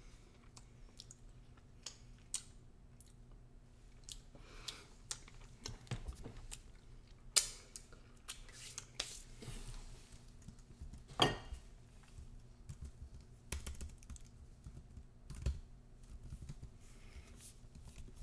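Irregular light clicks and taps of hands and utensils handling pizza toppings, spreading them over the crust, with two sharper knocks about seven and eleven seconds in. A faint steady low hum runs underneath.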